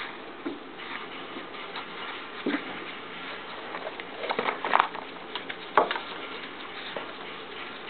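Handling noise as a steel nail is wrapped in cloth wraps on a wooden tabletop: soft rustling with a few sharper knocks and scrapes, the loudest about four and a half and six seconds in.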